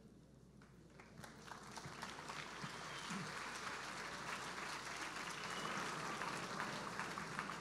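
Large audience applauding, beginning as scattered claps about a second in and building gradually into steady clapping.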